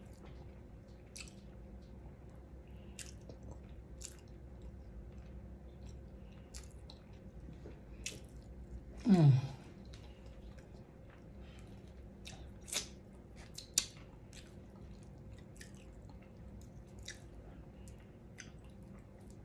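Close-up chewing and eating mouth sounds: small scattered wet clicks and smacks, with a brief falling hum of the voice about nine seconds in and a couple of sharper clicks a few seconds later.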